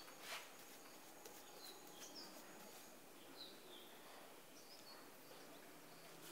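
Near silence, with faint, scattered bird chirps in the background and one light click about a third of a second in.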